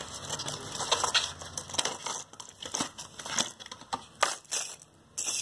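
Cardboard medicine carton and its foil blister pack being handled: irregular crinkling and sharp clicks, with a short pause near the end.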